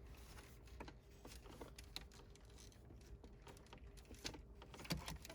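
Faint, scattered small clicks and rustles of plastic wiring plugs and cables being handled behind a car stereo head unit, over a low steady hum.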